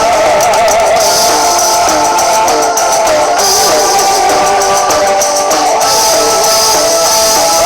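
Background music: an instrumental passage with a wavering lead melody over a steady percussion rhythm.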